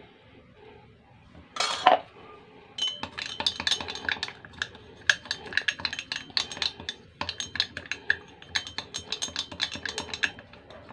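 A long spoon stirring in a glass mug, clinking rapidly against the glass as a spoonful of coffee dissolves in a little hot water. A short burst of noise about two seconds in comes before the run of clinks.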